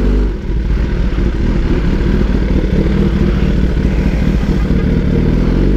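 Kawasaki ZX-10R inline-four running at low revs through a very loud aftermarket 4-into-1 exhaust with no dB killer fitted, the bike rolling slowly in traffic with small rises and falls in engine speed.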